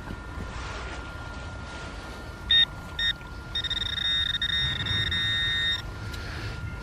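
Metal detector beeping on a buried target: two short high beeps about half a second apart, then a steady tone held for about two seconds.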